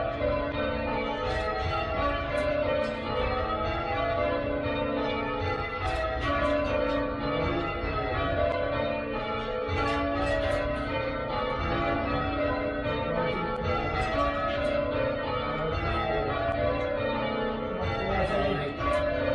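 Church tower bells in change ringing: a ring of bells struck one after another in a steady, continuous sequence of overlapping ringing tones.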